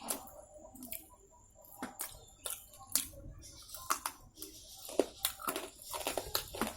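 Close-up eating sounds: chewing and crunching on crispy fried chicken and flour chips, with irregular crisp clicks and wet mouth smacks.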